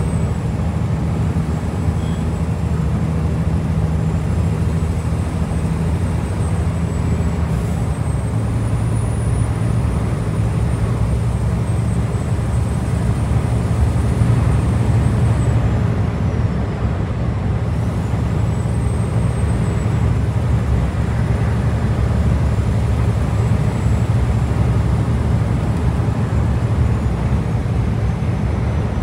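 Scania V8 diesel truck engine running on the road, a steady low drone over tyre and road noise. The engine note drops to a lower pitch about eight seconds in, and a faint high whine wavers throughout.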